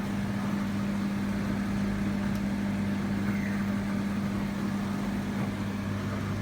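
Bosch tumble dryer running with a steady hum while its drum does not turn, the fault being that the dryer starts but will not spin.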